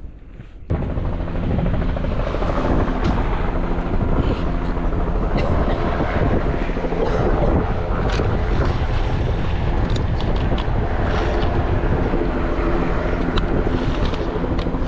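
A steady engine drone, loud and unbroken, that starts suddenly about a second in, with a few faint clicks over it.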